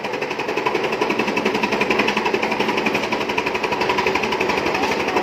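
Mini chaff cutter running and chopping green fodder, its blades cutting in a rapid, even rhythm. It grows a little louder over the first two seconds as fodder is fed in.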